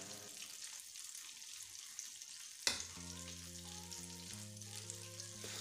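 Chicken wings deep-frying in hot oil in a steel pot, a steady crackling sizzle, with one sharp click a little under three seconds in. Background music with held notes comes in just after it.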